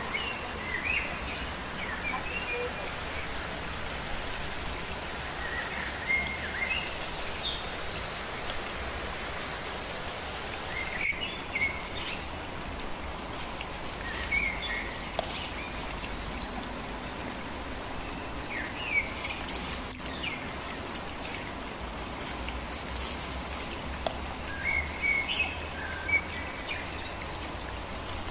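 Forest ambience: a steady high-pitched insect drone with short bird chirps every few seconds.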